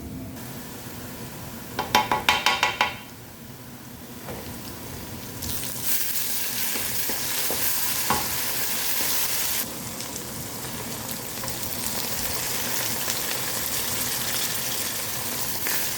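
Onions sautéing in hot oil in a pan, sizzling loudly and steadily from about five seconds in as ginger garlic paste goes in and is stirred. Before that, about two seconds in, there is a quick run of sharp taps.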